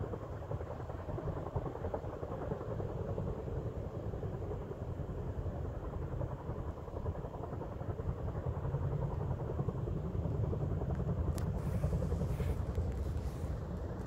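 Chinook tandem-rotor helicopter working in the dark, heard as a steady low rotor rumble that grows louder about nine seconds in.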